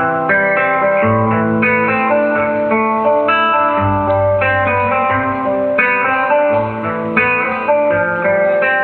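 Acoustic guitar played solo, single notes picked one after another over low bass notes that change every couple of seconds.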